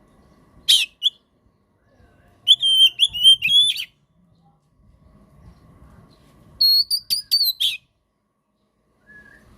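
Oriental magpie-robin singing in three short bursts of loud, high whistled notes with harsh clicks: a brief sharp call near the start, a rapid phrase about two and a half seconds in, and another about seven seconds in.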